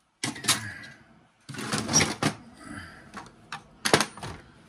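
Metal and plastic parts of a dismantled cordless circular saw clattering and clicking on a workbench as they are handled and set down, in irregular clusters of sharp knocks, the loudest near the end.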